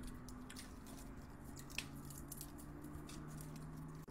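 Faint ASMR tapping and scratching of fingers and nails on rhinestones glued to the face, close to the microphone. It comes as scattered soft crackly clicks.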